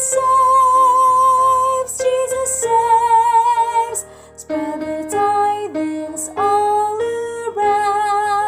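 Music: a choral song arrangement with a woman's voice singing long held notes with vibrato over the accompaniment, with a short break about four seconds in.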